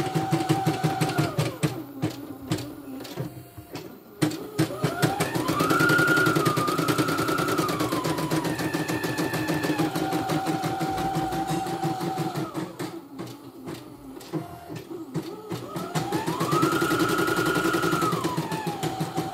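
CNY computerized embroidery machine stitching a design: rapid, even needle clatter over a motor whine. Twice the whine climbs in pitch as the machine speeds up, holds, then drops back. Each rise follows a quieter, sparser spell, a few seconds in and again past the middle.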